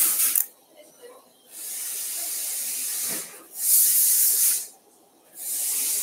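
Close-miked breathing: a longer, steady hiss of about a second and a half followed by a shorter, louder one, the cycle repeating about every four seconds.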